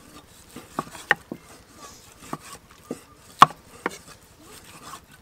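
A cleaver slicing raw pork, its blade knocking on a round wooden chopping block in a series of irregular sharp knocks. The loudest comes about three and a half seconds in.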